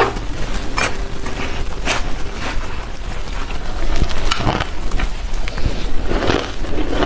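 Soft ice being bitten and chewed close to the microphone: irregular crisp crunches, roughly one every half second to second.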